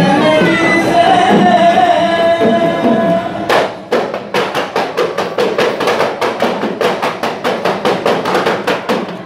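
Samrah ensemble music: a melody with held, sliding notes for the first few seconds, then a fast, even beat of small hand drums at about five strokes a second.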